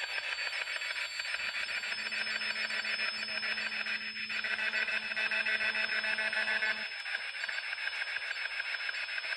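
Spirit box scanning through radio frequencies: a steady hiss chopped into rapid, even pulses, with a low hum coming in about two seconds in and dropping out near seven seconds.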